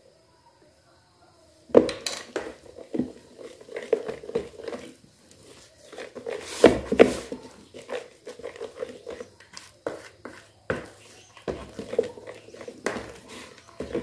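Kitchen utensils knocking and scraping against bowls and a baking pan, with dishes clattering. It starts about two seconds in, after near quiet, and goes on in irregular runs of knocks, a few of them ringing.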